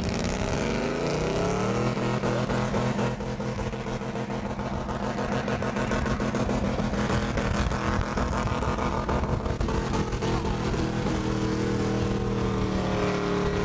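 Pickup truck engine revving up over about two seconds and then held at high revs during a burnout, its pitch stepping up a little near the end.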